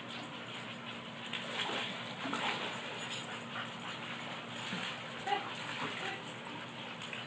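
A dog whining, with a few short, high cries.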